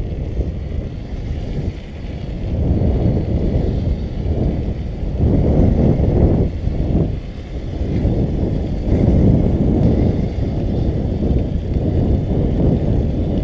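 Wind buffeting the microphone, together with tyre rumble, as a bicycle rolls down the bobsled track; a steady low rumble that swells and eases.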